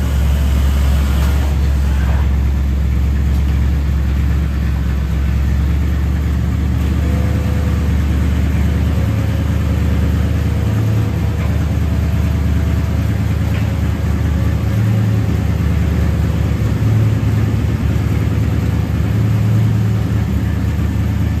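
1957 Ford Fairlane Skyliner idling steadily while its retractable hardtop is operated, a low, even hum, with faint thin whines from the top's mechanism partway through.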